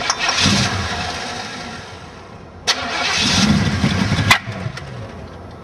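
Chevrolet Monte Carlo SS V8 with a Holley 600 carburettor given two short start attempts: each begins with a sharp click as the starter engages and runs for about one and a half to two seconds. The first fades away, and the second builds and then cuts off suddenly.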